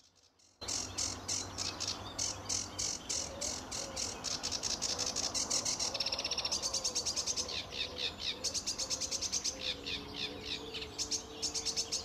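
Male sedge warbler singing: a long, fast run of repeated chattering notes that keeps switching from one phrase to another, with a quicker trill about six seconds in. The varied song is the male's courtship song, a larger repertoire making him more attractive to females.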